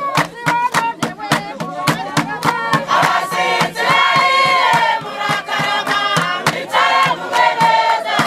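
Music: a group of voices singing over a steady, quick drum beat.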